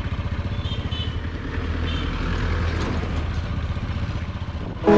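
Royal Enfield Bullet 350's single-cylinder four-stroke engine running with an even thump of about seven beats a second at idle. About a second and a half in the engine note grows a little louder and smoother.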